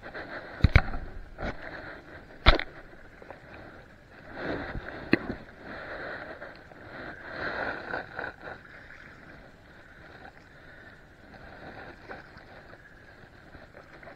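Sharp knocks and clicks of hands handling gear right against the camera over the first few seconds, then water swishing and lapping for several seconds that fades to a low steady wash.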